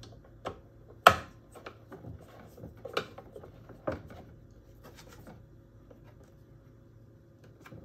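Sharp clicks and knocks of a hand tool working the screws of a Qualcast Swift EX35X mower's plastic drive-belt cover. The loudest knock comes about a second in, with more around three and four seconds and light ticks between.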